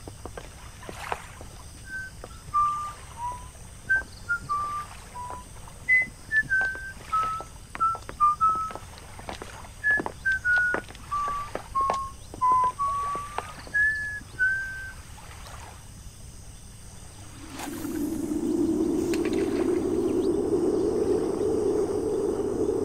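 A person whistling a tune in short separate notes that step up and down, with scattered light clicks. About three-quarters of the way through, the whistling has stopped and a steady low drone comes in.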